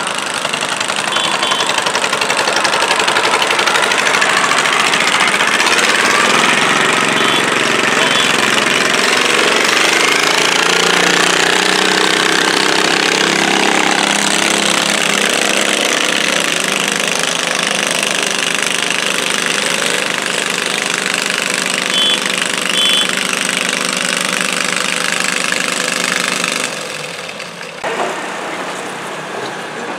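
Garden tractor engine running hard under load while dragging a weight-transfer pulling sled. It runs loud and steady, then drops off sharply near the end as the pull finishes.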